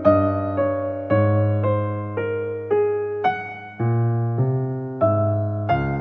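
Piano music: a slow, gentle melody of single struck notes, about two a second, each ringing and fading over held bass notes.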